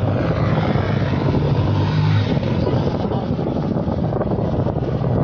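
Steady rush of road traffic and wind heard from a moving bicycle. A vehicle's engine hum stands out briefly about one and a half to two seconds in.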